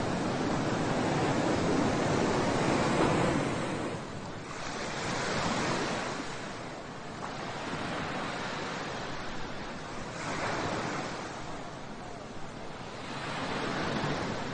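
Sea waves washing onto the shore, the surf swelling and easing roughly every three seconds, loudest in the first few seconds, with some wind.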